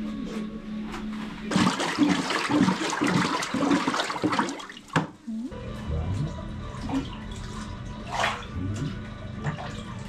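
Water in a wooden washi papermaking vat sloshing and splashing for about three seconds, starting about a second and a half in, as the papermaker works the screen frame through the pulp slurry; quieter knocks and drips follow.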